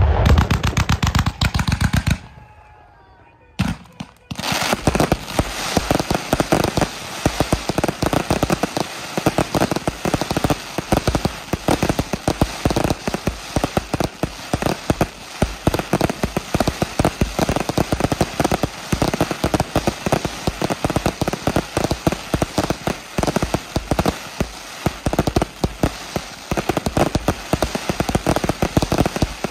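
Fireworks battery firing a loud burst, then after a lull of about two seconds a dense, near-continuous barrage of rapid bangs and crackles, like machine-gun fire.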